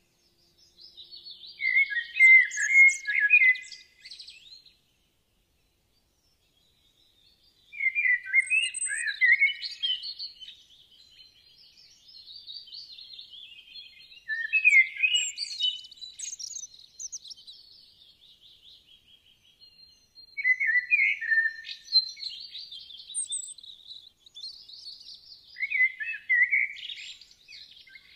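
Small birds chirping and singing in quick, bright phrases, in bursts with a pause of a few seconds early on.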